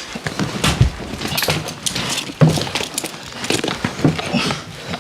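Scuffling and irregular knocks as a man is held down and handcuffed on the floor, with heavy breathing from the struggle.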